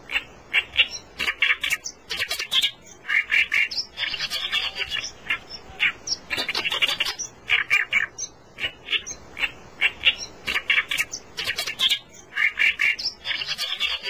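Oriental reed warbler singing its loud, harsh chattering song, with grating phrases repeated over and over and alternating between lower and higher notes.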